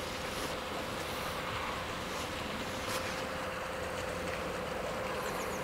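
Steady outdoor background hiss with a constant low hum and some wind on the microphone; a few faint high chirps near the end.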